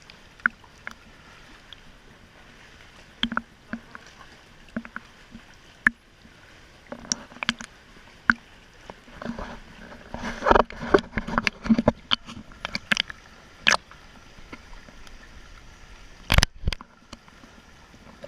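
Water splashing and sloshing in irregular bursts over a low steady rush, with sharp knocks, busiest in the middle, and one heavy thump near the end.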